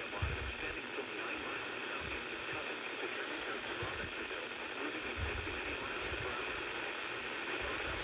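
Steady radio static hiss from a receiver, with irregular low thumps underneath.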